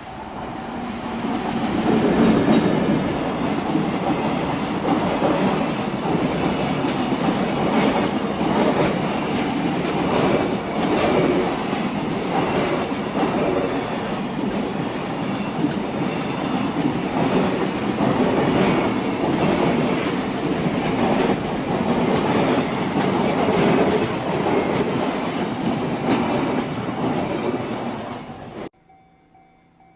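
JR Tokaido Main Line train passing close by: a steady rumble of wheels on rail with a rapid clatter of wheels over the rail joints. It builds over the first two seconds and cuts off abruptly near the end.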